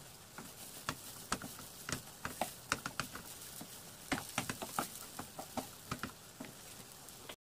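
Wooden spatula scraping and knocking against a non-stick frying pan as mashed potato filling is stirred and pressed, in many irregular clicks over a faint steady hiss of frying. The sound cuts off suddenly near the end.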